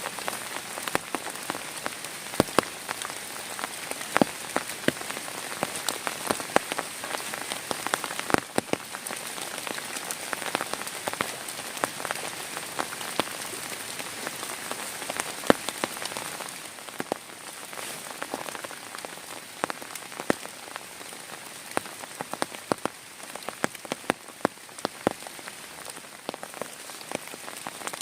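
Heavy rain falling, a steady hiss dotted with many sharp taps of single drops striking close by. It eases a little about halfway through.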